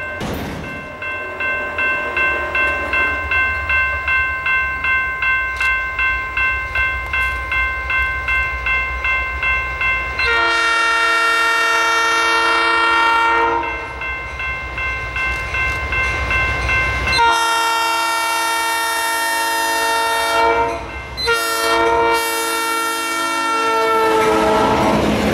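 Diesel freight locomotive's air horn blowing the grade-crossing signal as it approaches: long, long, short, long. Before the horn, an electronic grade-crossing bell pulses about twice a second, over the low rumble of the approaching train.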